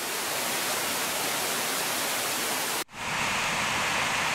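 Rushing water of a small cascade over rocks, cut off abruptly about three seconds in and replaced by the brighter, higher-pitched rush of a larger waterfall.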